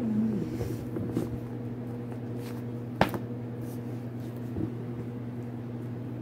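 Handling noise as a book is lifted and held up to the camera: light rustles and soft knocks, with one sharp click about three seconds in, over a steady low hum. A brief low voiced sound falls away at the very start.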